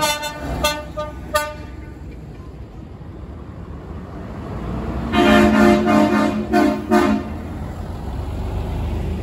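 Truck air horns sounding over the low rumble of truck engines. There are three short, higher toots in the first second and a half. About five seconds in comes a louder, deeper horn of several quick blasts lasting about two seconds.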